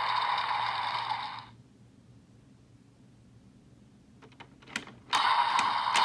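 Toy transformation belt's small speaker playing a noisy finishing-attack sound effect that cuts off about a second and a half in. After a quiet gap, a few sharp plastic clicks as the buckle is worked, then another noisy toy sound effect starts just after five seconds.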